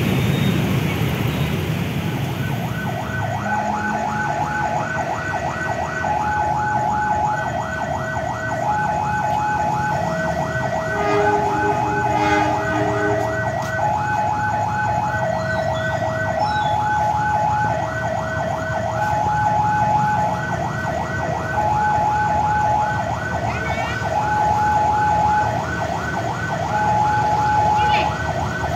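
Railway level-crossing warning alarm sounding for an approaching train. It starts about three seconds in as a hi-lo two-note tone over a rapid ticking bell, repeating steadily. Underneath, the CC 201 diesel-electric shunting locomotive's engine runs as it draws the carriages forward.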